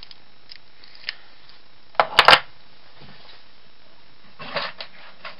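Sharp metallic clicks and clacks from the steel case of a Winkhaus multipoint main lock being worked with a test cylinder as its function is checked after repair. There is a single click about a second in, a quick cluster of loud clicks about two seconds in, and a softer rattle of clicks near the end.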